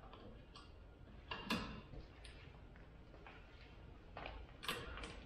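Hand pop-rivet gun being squeezed to set a rivet: a string of short, sharp metallic clicks. The two loudest come about a second and a half in and near the end.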